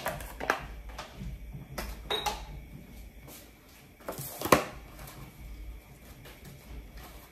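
Plastic salad spinner being handled on a countertop: a few light knocks and clatters as the lid and the basket of washed romaine lettuce are set down, the loudest about four and a half seconds in.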